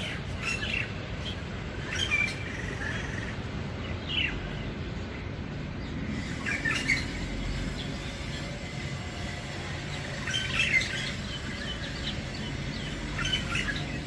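A shrike calling in short, chirping phrases, one every two to four seconds, with some notes sweeping down in pitch.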